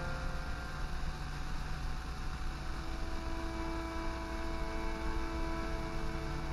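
Ambient drone soundtrack synthesized in Kyma: a steady low hum under long held tones, with a new low note entering about two and a half seconds in.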